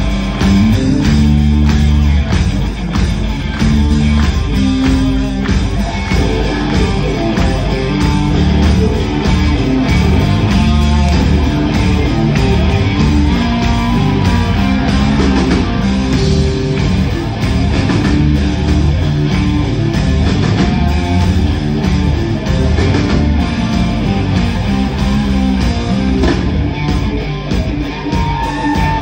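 Live rock band playing loudly with electric guitars, bass and drums, heard from the audience through a phone's microphone.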